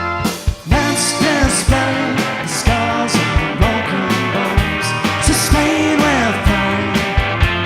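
A rock band playing a song live, with a singer, guitar and drums; the beat drops out briefly and the full band comes back in just under a second in.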